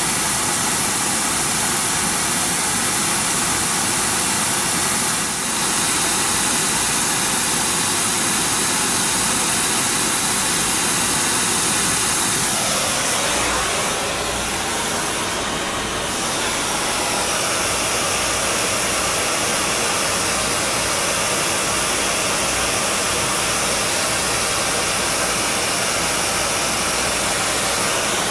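Oxy-acetylene powder spray-welding torch hissing steadily as it sprays a build-up coat of metal powder onto a turning motor shaft journal. The steady hiss changes character about twelve seconds in.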